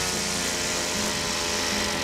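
Engine-driven brush cutter fitted with a steel blade, running steadily as it cuts thin grass, with background music playing over it.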